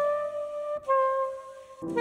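Live jazz duet of soprano saxophone and piano: the saxophone holds a long note, slides down to a second held note just under a second in, and a piano chord comes in near the end.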